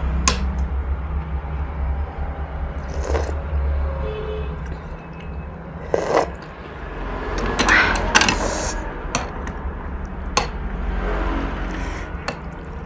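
Metal spoon and chopsticks clinking and scraping against a ceramic bowl of noodle soup, with sips of broth from the spoon, several separate clinks spread out, and a longer noisy sipping stretch about eight seconds in. A steady low hum runs underneath.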